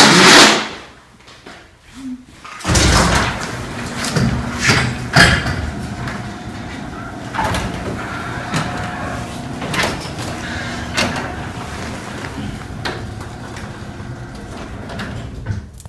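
Sectional garage door being raised by its opener: a steady rumble with repeated rattles and clunks as the panels roll up the tracks, starting a few seconds in and stopping just before the end. A brief loud noise comes at the very start.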